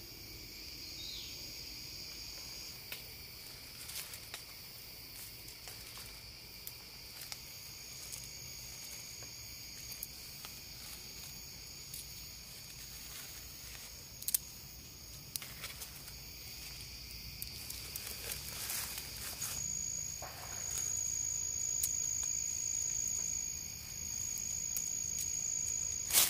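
Forest insects droning steadily at a high pitch, with a stronger, higher insect tone joining about two-thirds of the way in. Scattered small clicks and rustles of dry leaf litter being handled, growing busier in the last third.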